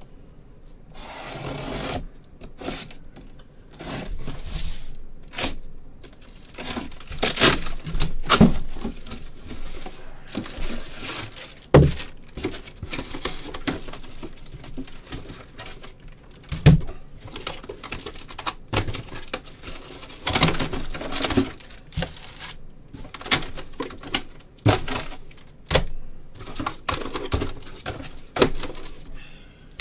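Box cutter slicing through the packing tape on a sealed cardboard case, then the tape ripping and the cardboard flaps being pulled open: a run of irregular scrapes, rips and crinkles with a few sharp knocks.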